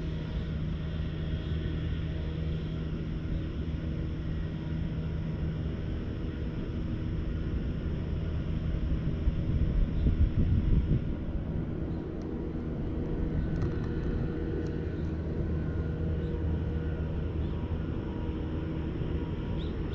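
A grey tabby cat purring steadily close up while it is stroked, a sign of contentment, with a brief louder rumble about halfway through.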